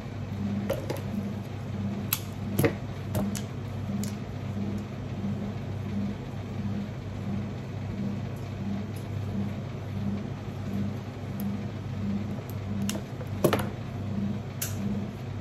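A steady low machine hum with a fainter pulse about three times every two seconds. Over it come scattered light clicks and taps from rose stems being handled and pushed into floral foam, with one sharper knock near the end.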